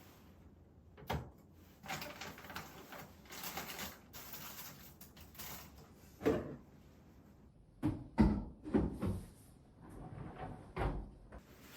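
Scattered knocks and rustling of containers and packages being handled in a refrigerator, with a cluster of sharper knocks in the last few seconds.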